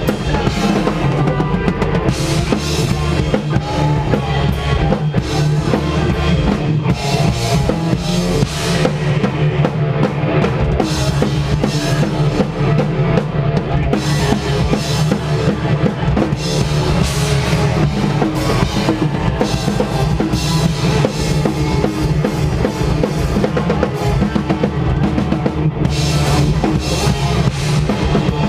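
Loud live post-hardcore band playing without a break: full drum kit with bass drum and snare driving under a dense wall of band sound.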